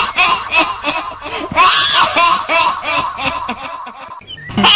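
A witch's cackling laugh in a woman's voice: quick repeated 'hi-hi-hi' syllables, each rising and falling in pitch. It dips briefly about a second and a half in, surges again, tails off, and breaks into a fresh loud cackle just before the end.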